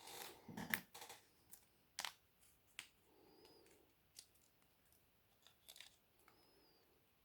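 Scattered light clicks and taps of small repair tools on a smartphone's internal parts during disassembly, with a brief scraping rustle near the start.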